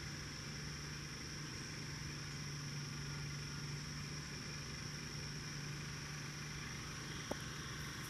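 A generator engine running steadily with a constant low hum, under a steady high drone of insects; a single click near the end.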